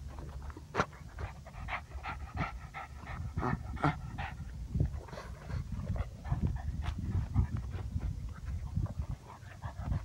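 A pug panting close to the microphone: quick, short, raspy breaths, strongest in the first half, over a steady low rumble.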